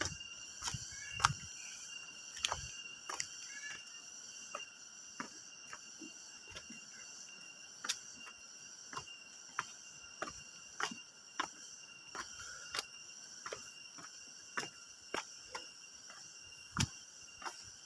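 A steady, high-pitched chorus of crickets or cicadas, with sharp taps at uneven intervals, about one a second.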